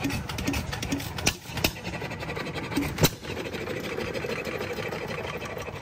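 An engine running with a fast, even clatter, with a few sharp clicks about one and three seconds in.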